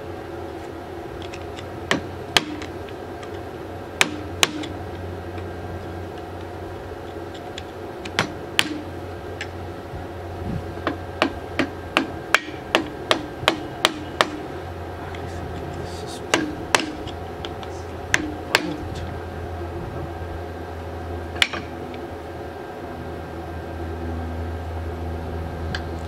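Hammer blows on the pulley of a seized car air-conditioning compressor: scattered single and paired sharp strikes, then a quick run of about ten in the middle.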